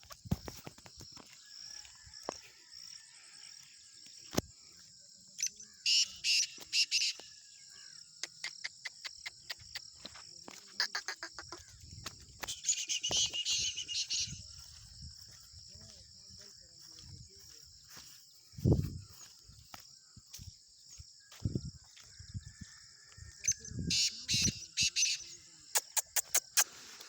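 Chukar partridge giving bursts of rapid clucking notes, several times, over a steady high insect drone.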